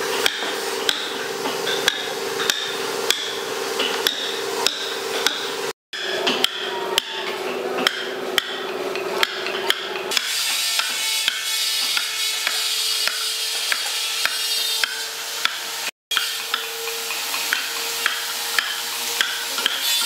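A mallet striking a chisel driven into a wooden log: a steady rhythm of sharp blows, about one to two a second, each cutting a chip from the wood. The blows are broken by two very short gaps, over a steady background hum that changes about halfway through.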